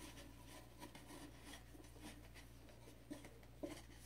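Faint rustling and rubbing of a folded scarf being pressed into a Pringles can, with two soft taps about three seconds in.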